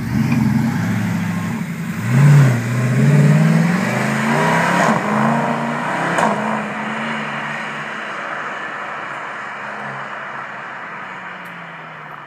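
Mercedes-Benz SLS AMG Black Series's 6.2-litre V8 pulling away and accelerating hard. The engine note rises and drops back several times as it shifts up, loudest about two seconds in, then fades steadily as the car drives off.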